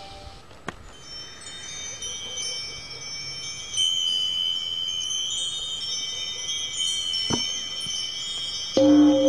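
Background music in a quiet passage of high, sustained chime-like tones; near the end, louder, lower held notes come in.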